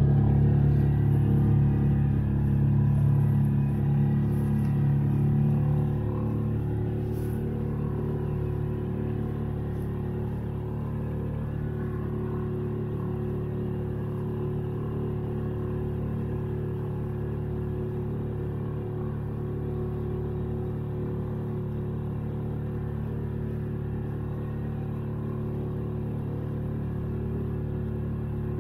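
A boat engine running steadily at a constant speed. It is a little louder for the first six seconds, then settles to an even level.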